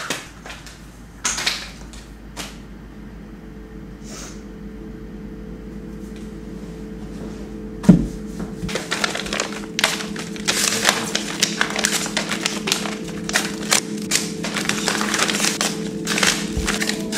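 Paper rustling and crinkling as sheets and an envelope are handled, dense and continuous in the second half, with one sharp thump about eight seconds in. Low sustained music tones run underneath from a few seconds in.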